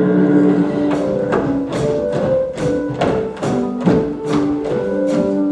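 Instrumental music with sustained notes over a steady percussion beat of about two to three strikes a second.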